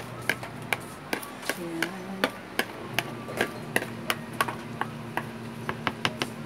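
Kitchen utensils knocking on a hard container or surface: a quick, irregular run of sharp taps, about four a second.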